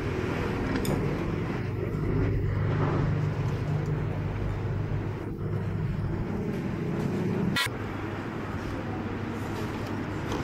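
Steady street traffic noise, engines running and passing, with a sharp click about three quarters of the way through.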